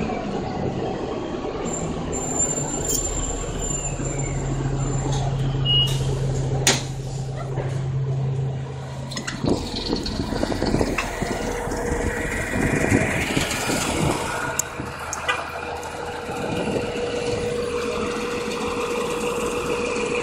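Orion VII NG city bus running, heard from by its rear exit doors and then from the street beside it. There is a steady engine hum, a sharp clunk and a steady whine near the end.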